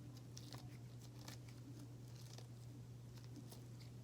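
Near silence: room tone with a low steady hum and a few faint small clicks.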